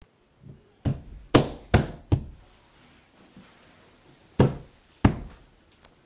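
Six loud, sharp knocks: four in quick succession about half a second apart, then a pause and two more.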